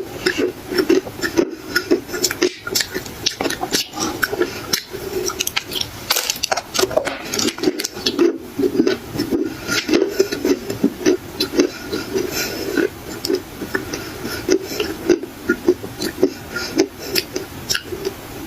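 Black clay being bitten and chewed close to the microphone: a dense run of irregular, sharp crunches.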